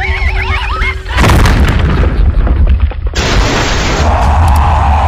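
Cartoon action sound effects: a wavering high-pitched warble, then about a second in a sudden loud boom with a deep rumble, followed by a second long noisy rush that swells and fades.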